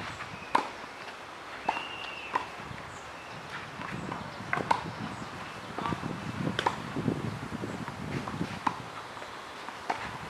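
Tennis rally on a clay court: sharp pops of the ball struck by rackets and bouncing, one every second or two, with footsteps scuffing on the clay.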